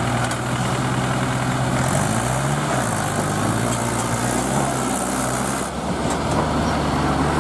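Mahindra 475 DI tractor's diesel engine running as the tractor drives forward, its note changing about two seconds in and again near the end.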